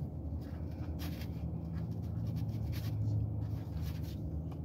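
Plastic fork scraping and clicking against a plastic takeout tray in a string of short scrapes, over a steady low hum.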